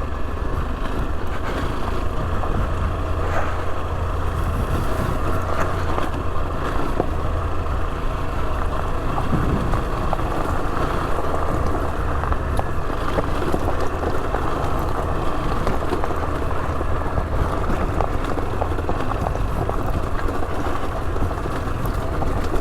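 Rieju Adventura 125's single-cylinder four-stroke engine running steadily under way on a rough green lane, with scattered short clicks and knocks.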